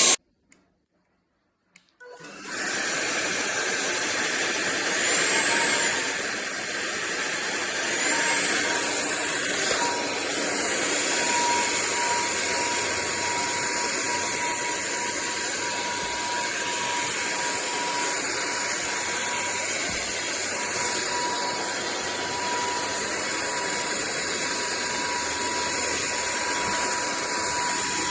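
Sulean X8 cordless stick vacuum running steadily, a continuous whooshing motor noise with a thin high whine. It starts about two seconds in, after a moment of near silence.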